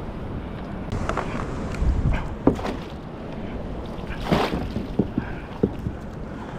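Water sloshing against a Hobie kayak's hull on choppy water, with wind buffeting the microphone. A few sharp knocks come from the boat, and there is a louder swish of water a little past the middle.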